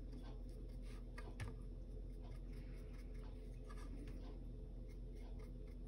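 Faint scratching and tapping of a small flat paintbrush dabbing and stroking acrylic paint onto a wood-like canvas panel, over a steady low hum. One tap about a second and a half in is slightly louder.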